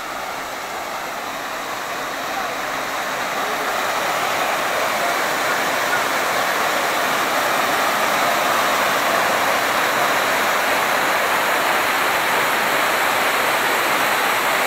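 Small waterfall splashing down bare rock, a steady rush of falling water that grows louder over the first few seconds and then holds.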